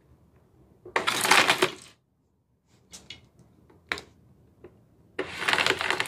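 Philips canister vacuum cleaner worked from its top buttons: two short whirring bursts, about a second each, with a few button clicks between them.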